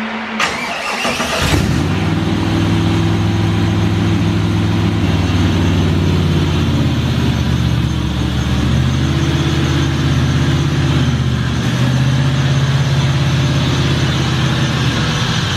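Chevrolet C4 Corvette's V8 engine starting about a second and a half in, then idling steadily.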